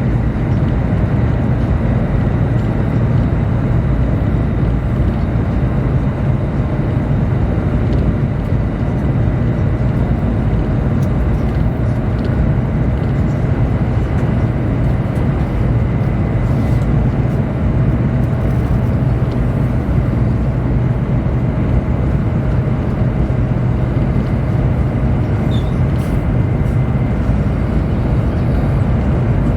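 Steady cabin noise inside a Chinese high-speed train running along the line: a constant deep rumble with a faint high whine above it and an occasional light tick.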